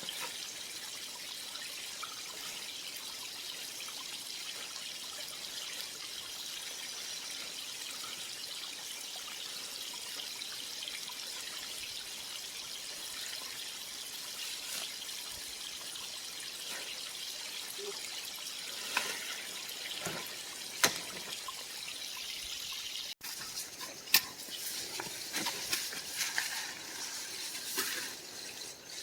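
Creek water running and trickling steadily, with a few sharp clicks or knocks about two thirds of the way in. Near the end the sound changes suddenly to a less even run of water with more frequent clicks.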